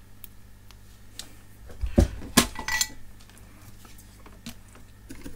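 Tools and small hard objects handled on a workbench: two sharp knocks about two seconds in, the second followed by a brief metallic clink that rings for a moment, with a few lighter taps over a steady low hum.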